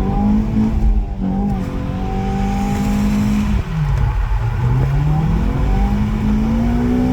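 Car engine running hard at high revs; about halfway through the revs drop and then climb back up.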